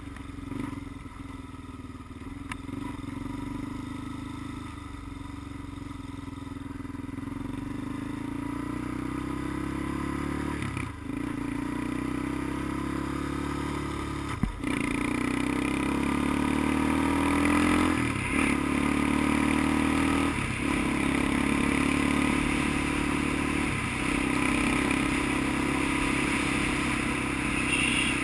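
Engine of a handlebar-steered vehicle under way on the road. It climbs in pitch and loudness, with about five brief dips and drops in pitch, as at gear changes.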